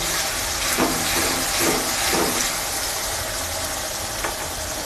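Ginger-garlic paste sizzling in hot oil in a pan, with a spatula scraping through it a few times in the first two seconds, over a steady low hum.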